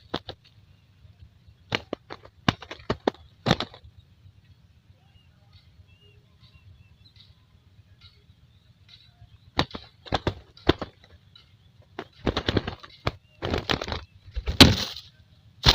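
A dove's wings flapping in short bursts of sharp claps: a few near the start, then a quiet stretch, then a dense run in the last few seconds.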